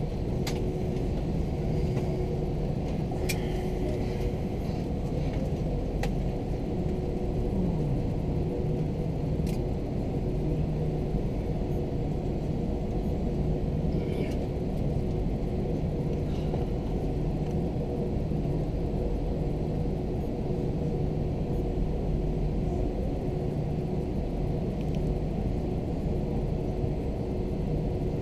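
Steady low rumble inside the cabin of an Airbus A321 taxiing on the ground, with a couple of steady hums over it and a few faint clicks.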